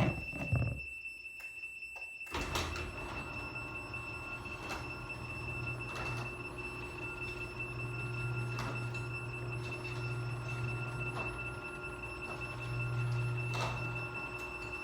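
A garage door opener starts about two seconds in and runs steadily with a low motor hum, moving the door. A smoke alarm's steady high-pitched tone sounds behind it.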